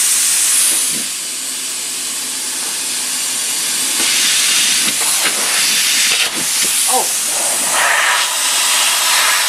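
Compressed air hissing steadily from the shop air system, with a few light knocks partway through.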